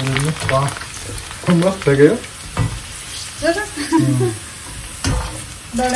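Puris deep-frying in hot oil: a steady sizzle, with a couple of sharp knocks partway through.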